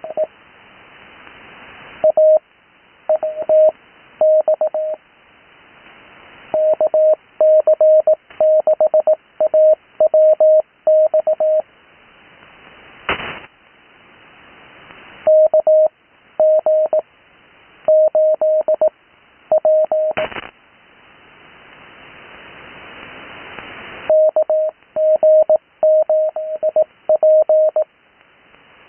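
Morse code (CW) received on an 80 m HF radio: a single steady tone of about 600 Hz keyed in groups of dots and dashes spelling out amateur call signs, with receiver hiss swelling in the gaps between groups. Two sharp static crackles, about 13 seconds in and about 20 seconds in.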